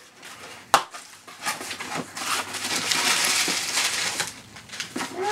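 Brown packaging paper being torn and crumpled off a small parcel, with one sharp snap about a second in and a long stretch of dense crackling rustle after it.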